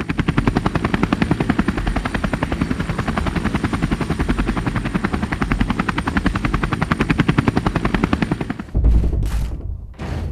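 Rapid, even chopping pulses like a helicopter's rotor, a sound effect laid under the intro title cards. About nine seconds in, it gives way to a deep boom and a few whooshing sweeps.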